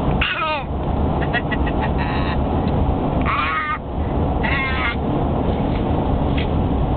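A baby's forced, put-on laughter: about five short bouts of high-pitched 'ha' sounds, each falling in pitch and lasting under a second. Under them runs the steady rumble of road noise inside a moving car.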